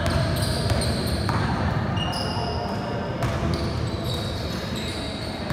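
Basketball game play on a hardwood gym court: the ball bouncing and short, high squeaks of sneakers, over the steady rumble of a large hall.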